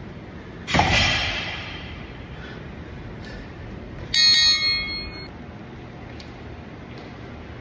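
A pair of iron plate-loaded dumbbells set down on the rubber gym floor with a heavy impact that rings out briefly, about a second in. About three seconds later comes a short, bright metallic ring of metal striking metal.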